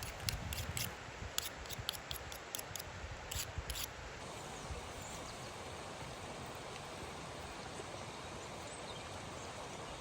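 A run of quick, irregular sharp taps and clicks from hand food preparation with utensils during about the first four seconds, then only a steady outdoor hiss.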